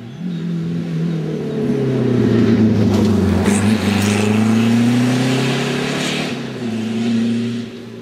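Rally car engine revving hard as the car passes through a tight hairpin, the engine note climbing steadily under acceleration. There is a brief break about six seconds in, then the sound fades away near the end.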